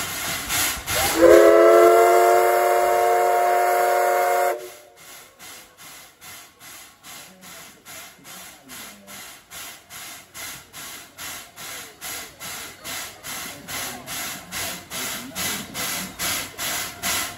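Steam whistle of the C11 123 steam locomotive giving one long blast of about three and a half seconds, cut off sharply. Then even, rhythmic puffs of steam from the locomotive, about two to three a second, slowly growing louder.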